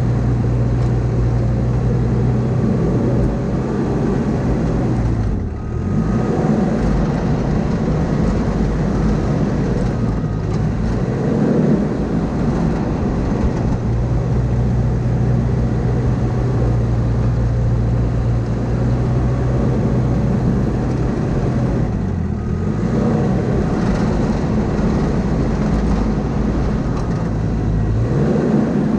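Diesel engine of heavy earthmoving equipment running steadily at high revs, its pitch dipping briefly and recovering three times.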